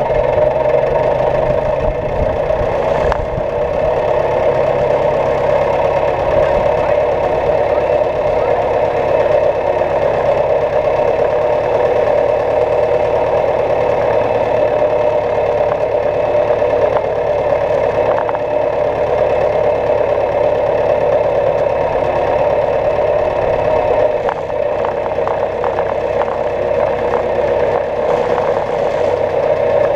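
Farm tractor engine running steadily, with a slight shift in its low tone about 24 seconds in.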